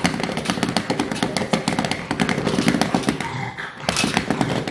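Rapid, irregular clicking and tapping: a French bulldog's claws scrabbling on a hardwood floor as it runs and turns.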